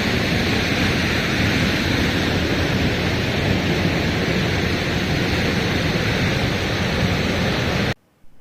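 Harvalem waterfall's falling water close by, a loud steady rushing noise so heavy that a voice can't be heard over it. It cuts off suddenly near the end.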